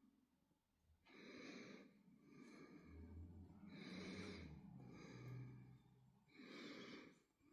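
Faint, slow breathing close to the microphone, about five soft breaths.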